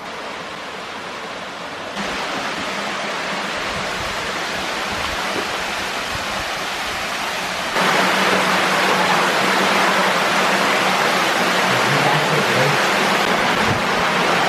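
Waterfall: a steady rush of falling water that jumps louder suddenly about two seconds in and again about eight seconds in.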